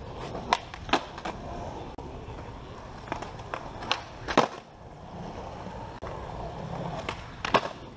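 Skateboard on concrete flatground: wheels rolling, with sharp wooden clacks of tail pops and board landings. The clacks come in clusters, about a second in, in the middle with the loudest around four and a half seconds in, and once more near the end.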